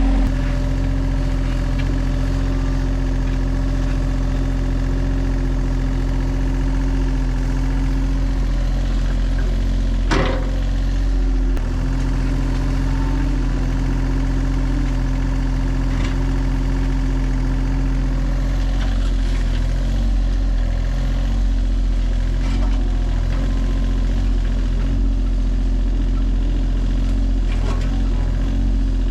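Mini excavator's diesel engine running steadily, with one sharp knock about ten seconds in.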